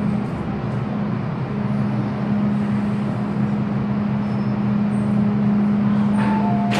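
Hong Kong MTR train alongside the platform behind platform screen doors: a steady low hum over a continuous rumble. A short two-tone beeping starts near the end.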